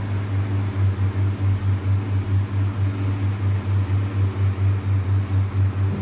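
Steady low machine hum from running laboratory equipment, throbbing evenly about four times a second.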